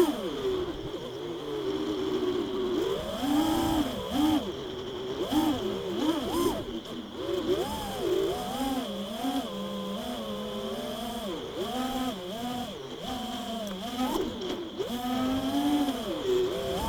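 FPV racing mini-quadcopter's brushless motors and propellers buzzing, their pitch swooping up and down constantly with the throttle. A steady high whine runs underneath.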